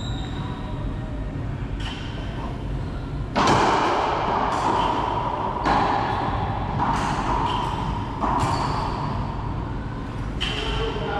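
Racquetball rally: a series of sharp hits, roughly one a second, as the ball is struck by racquets and slams off the court walls. Each crack rings in the hard-walled court's echo, and the loudest comes about three and a half seconds in.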